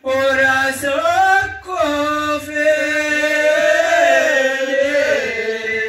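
A man's voice chanting a line of Amazigh tanddamt sung poetry into a microphone, amplified through a PA. A short phrase, a brief breath, then a long drawn-out line with a wavering, ornamented melody that falls near the end.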